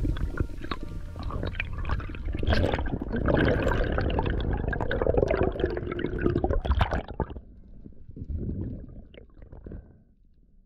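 Water and bubbles gurgling and sloshing as heard through an underwater camera housing, with many sharp clicks and knocks. It drops away after about seven seconds and fades out near the end.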